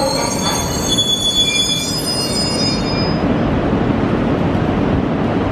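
Several high-pitched squealing tones from a Shinkansen train's wheels on the rails, fading out about three seconds in and leaving a steady low rumble.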